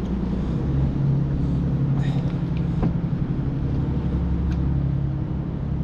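Steady low rumble of a motor vehicle's engine running close by, without a break.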